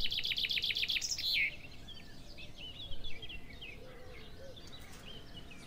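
Birds singing: a fast trill of evenly repeated high notes in the first second and a half, then scattered short chirps.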